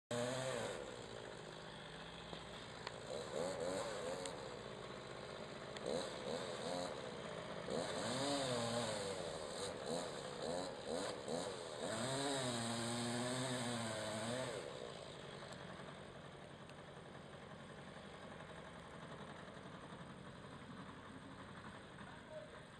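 Small two-stroke engine, a chainsaw, revving up and down in repeated surges. It stops about 15 seconds in, leaving only steady background noise.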